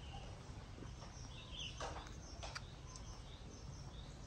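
Faint background with a steady low hum, a few soft high chirps and a couple of small clicks.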